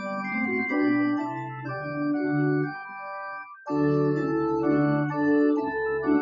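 Organ music playing held chords, with a brief pause between phrases about three and a half seconds in.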